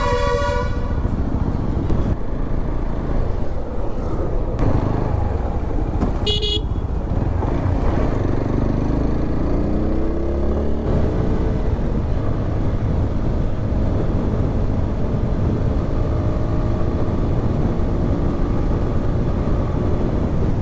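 Motorcycle riding in traffic: steady engine and wind-and-road noise, with a short horn toot at the very start and another about six and a half seconds in. The engine note climbs in pitch around eight to ten seconds in as it pulls away.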